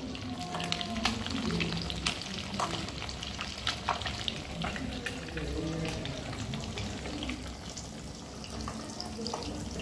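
Oil sizzling and crackling in an iron kadai as food deep-fries, with frequent sharp little pops throughout.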